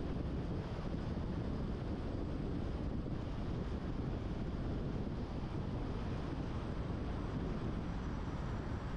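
Steady road and wind noise of a car driving along a multi-lane road: tyre rumble on asphalt and air rushing past, even throughout with no distinct events.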